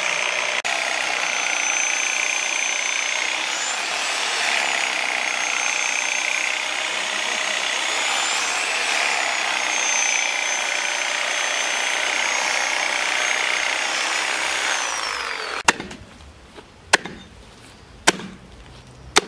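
A power tool's motor running steadily with a high whine that dips and rises every few seconds, stopping abruptly near the end. Then four sharp knocks about a second apart, like chopping strikes.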